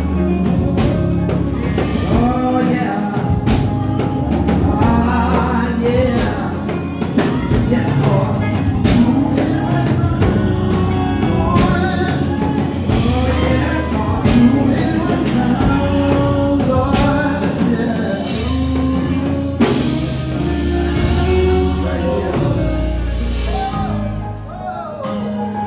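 Live gospel worship singing: voices sung through microphones over a band with a steady beat and sustained low notes. The music eases off a little near the end.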